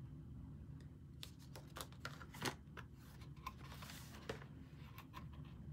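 Faint handling of a cardboard subscription box and the products inside: scattered light clicks and taps, with a short rustle of packaging about four seconds in, over a low room hum.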